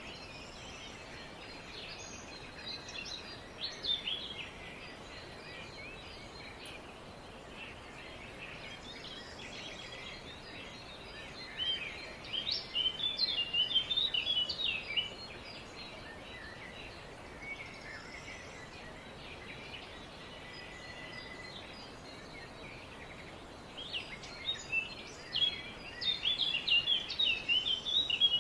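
Small songbirds chirping in quick, busy bursts of a few seconds each, three times, over a steady background hiss. A single short whistled note sounds between the second and third bursts.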